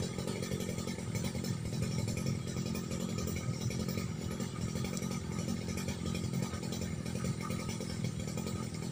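A small engine running steadily, a continuous even drone with no change in speed.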